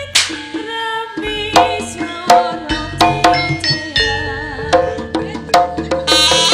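Javanese jaranan ensemble music played live: sharp hand-drum (kendang) strokes under sustained melodic and metallophone lines. The ensemble swells fuller and louder about six seconds in.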